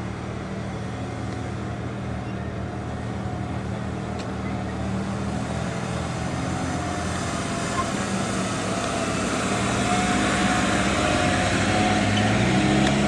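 Off-road vehicle engines running steadily, slowly growing louder, with the engine note rising slightly near the end.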